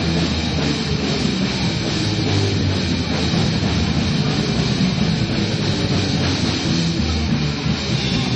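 Rock music from a band playing electric guitar and drums, loud and continuous.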